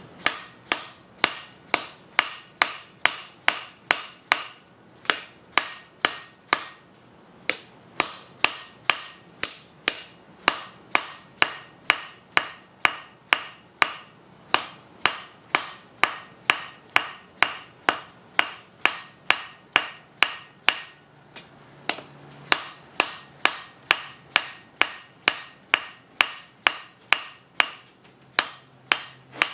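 Hand hammer forging a hot knife blade on a flat-topped block of mild steel used as an anvil: steady blows at about two a second with a few short pauses, each blow ringing briefly.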